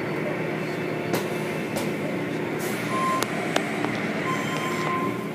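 Automatic car wash tunnel machinery running: steady spraying and churning of water and cloth wash curtains, with scattered clicks and knocks. Short electronic beeps sound about three seconds in and again near the end.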